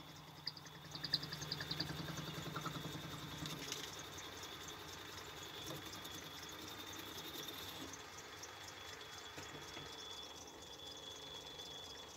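Metal lathe running with a parting tool slowly cutting through bar stock: a faint steady high whine with light, regular ticking that fades after about eight seconds.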